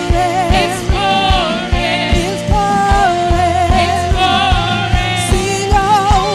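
Live gospel worship music: a woman sings the lead melody with vibrato over keyboard, sustained low bass notes and a drum kit keeping a steady beat of about two kick-drum strokes a second.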